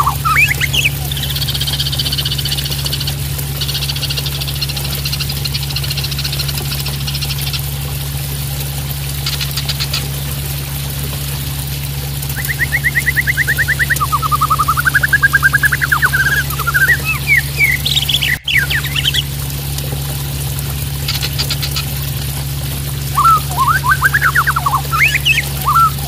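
Juvenile white-rumped shama (murai batu trotol) singing in bursts of rapid trills and warbled phrases, with a buzzy rattle early on. Behind it is the steady splash of running water and a low hum.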